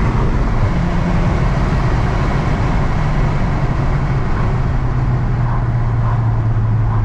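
2016 VW Golf R's turbocharged four-cylinder engine running on the road with steady road and wind noise, its note dropping in pitch in a few steps. The engine has fresh spark plugs after a misfire and is running cleanly.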